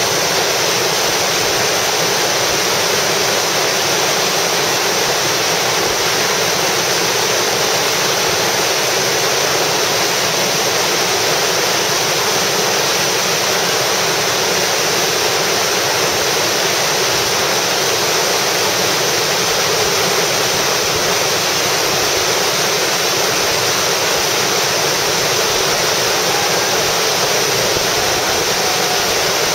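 Whitewater rapids of the Colorado River rushing over boulders: a loud, steady rush of water with no break.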